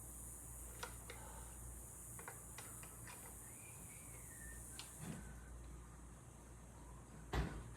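Faint scattered clicks and taps of hand tools and metal parts being handled at a motorcycle's front drum brake linkage, with one louder knock near the end, over a low steady hum.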